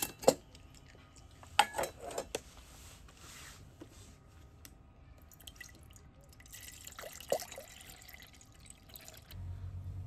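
Several light clinks and taps of small hard objects being handled: a couple at the start, a quick cluster about two seconds in, and two more around seven seconds.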